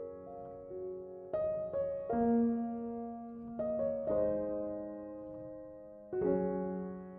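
Background piano music: slow, sustained chords struck every second or two, each ringing and fading before the next.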